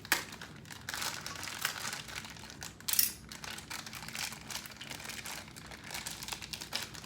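Packaging crinkling and rustling in irregular crackles as vacuum cleaner parts are unwrapped, with one sharper, louder crackle about three seconds in.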